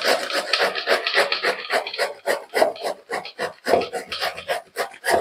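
Peeled bottle gourd being grated by hand on a grater: repeated rasping strokes, running together at first and then about three a second.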